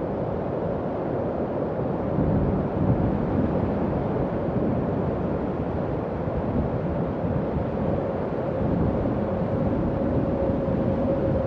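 Howling wind sound effect for horror: a steady, low rushing wind with a faint, held whistling tone that grows clearer near the end.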